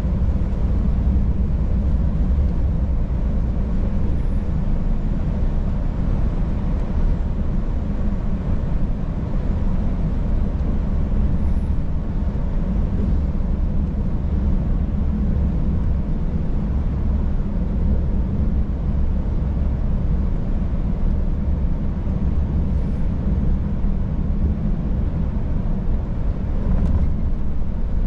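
Scania S500 truck under way at an even pace: a steady low rumble of its 13-litre straight-six engine and road noise.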